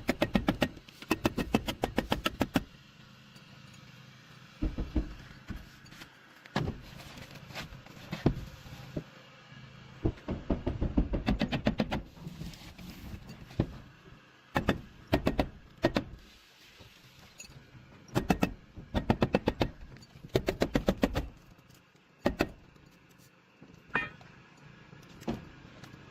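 Bursts of rapid, sharp impacts: a fast run of about eight a second at the start, then short clusters of knocks that stop and start every second or two.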